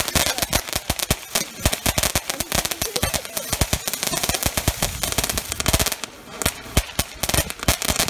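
Ground fountain firework spraying sparks with a rapid run of crackling pops, many a second, thinning briefly about six seconds in before picking up again.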